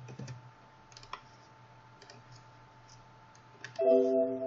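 A few sparse computer mouse clicks, then near the end a steady low-pitched tone held for about a second, the loudest sound here.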